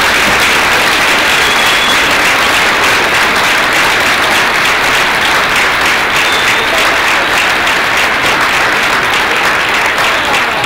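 Audience applauding: steady, dense clapping from a large crowd that eases slightly near the end.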